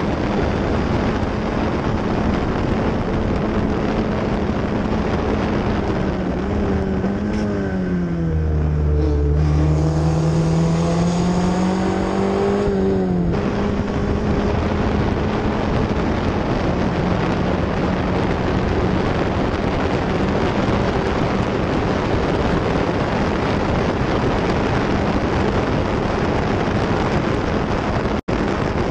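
F1600 formula race car's four-cylinder engine heard from on board, running hard at high revs. About seven seconds in the revs drop for a corner, then climb back as it accelerates again, while a low rumble runs under it for about three seconds. Near the end the sound cuts out for an instant.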